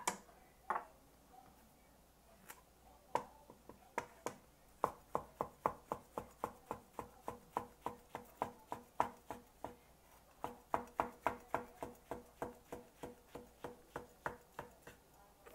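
Chef's knife slicing a shiitake mushroom on a plastic cutting board: a few scattered taps, then a steady run of knife strikes on the board at about four a second, with a short break about two-thirds of the way through.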